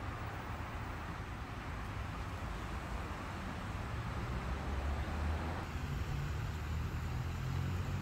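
Steady outdoor background noise: a low, uneven rumble under a soft hiss, growing a little louder about five seconds in.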